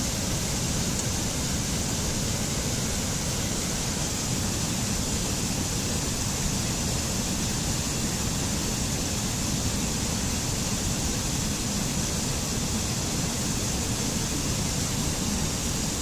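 Mountain stream rushing and splashing over small rocky cascades: a steady, even rush of water.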